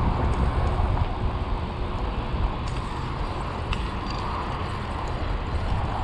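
Bicycle being ridden: steady wind and road rumble on a chest-mounted camera's microphone, with a few faint clicks and creaks from the bike.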